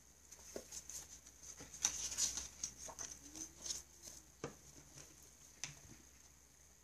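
A stack of paper flashcards being handled and squared up on a desk mat: irregular paper rustling and light taps, busiest around two seconds in, with a couple of sharper taps near the end.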